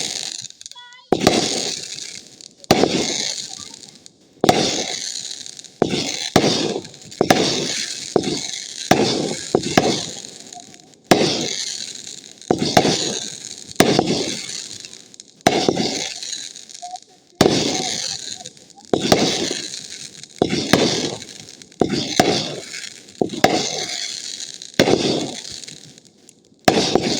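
Fireworks cake firing: a run of about two dozen sharp bangs, roughly one a second, each followed by a crackling sizzle that fades away.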